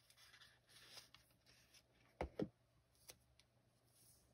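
Faint handling of paper packaging and cards as stationery items are unpacked: light rustling, with two soft knocks a little over two seconds in.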